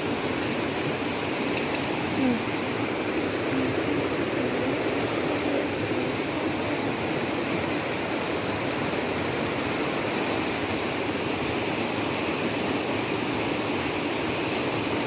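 Steady rush of a fast, rocky river, water running over stones and small rapids.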